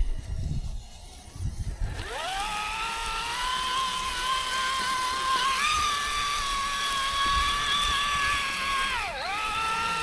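High-pitched whine of a small electric motor: it spins up about two seconds in, holds a steady pitch, dips sharply for a moment near the end and climbs back.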